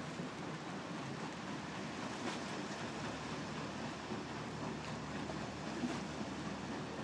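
Steady wash of churning water and running noise from the Lake Geneva paddle steamer Vevey, with a small knock about six seconds in.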